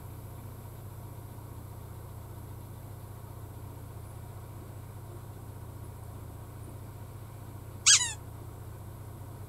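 Steady low room hum, with one short, high-pitched squeak falling in pitch about eight seconds in.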